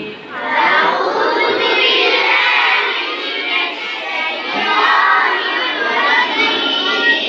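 A group of children chanting a Quran recitation together in unison, repeating after the teacher in a recitation drill.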